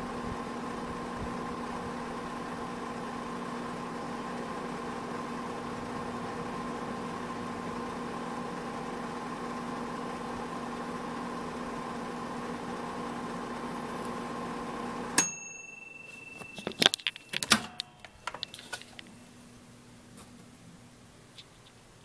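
Vintage 1970s Hotpoint RE53C microwave oven running with a steady electrical hum, which cuts off about fifteen seconds in with a single bell ding as the timer ends the cycle. A few sharp clicks and clunks follow as the door is opened.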